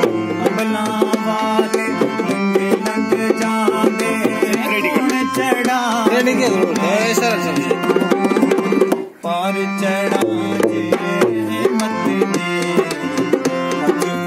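Harmonium playing sustained reed chords and melody over a dholak beating out a steady hand-played rhythm. Both stop for a split second a little past the middle, then carry on.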